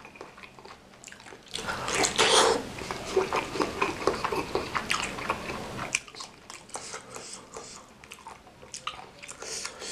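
Close-miked wet chewing of soft, chewy bakso aci (tapioca meatballs) in spicy broth, with sticky mouth clicks; busiest and loudest from about one and a half seconds in to about six seconds, then quieter.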